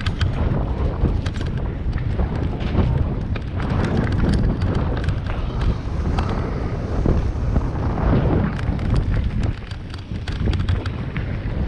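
Titus mountain bike descending a rough dirt forest trail at speed: wind buffeting the microphone as a steady low rumble, with tyre noise and frequent clicks and rattles from the bike jolting over bumps.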